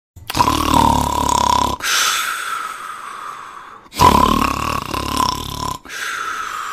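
Domestic cat snoring in its sleep: two long snores about four seconds apart, each followed by a softer, breathy stretch.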